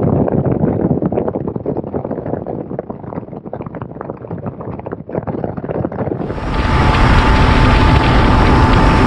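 Bass boat running at about 77 mph: wind buffets the microphone over the rush of air and water. About six seconds in the sound turns louder and steadier, with the outboard motor's steady high whine at speed over the spray of the wake.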